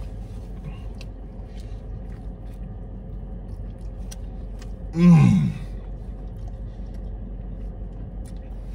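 A man lets out one loud, falling "mmm" of enjoyment about five seconds in while chewing a mouthful of burrito, with faint chewing clicks over a steady low hum in the car cabin.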